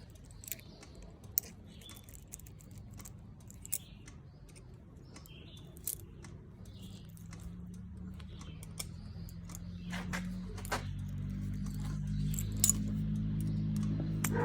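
Scattered small metallic clicks and clinks from handling the cable and tools, a few louder ones in the second half, over faint background music that grows louder toward the end.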